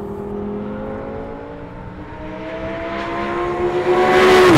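Audi R8 LMS Ultra GT3 race car's V10 engine pulling under power, its note climbing steadily and growing louder. Near the end it passes close by with a rush of noise, and the pitch starts to drop.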